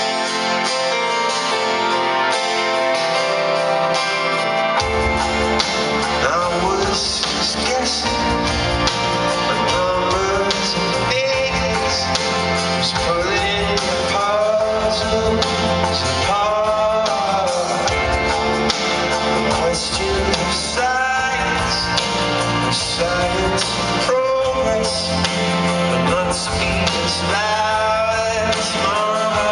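Rock band playing live, heard from the audience: guitar, keyboard and a male lead vocal, with bass and drums coming in about five seconds in.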